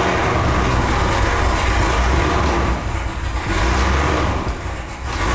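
Car engine running loudly with a low rumble, just after being started.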